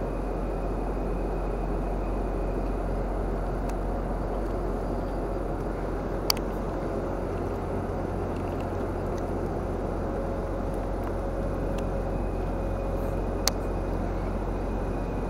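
Steady low engine rumble with a hiss over it, and a couple of sharp clicks, one about six seconds in and one near the end.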